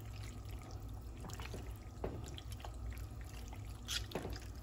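Penne in a thick creamy cheese sauce being stirred in a frying pan: soft wet squelches and small clicks of the utensil, with a sharper click about four seconds in, over a low steady hum.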